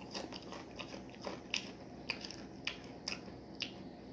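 A person chewing a Doritos tortilla chip: faint, irregular crunches, about three a second.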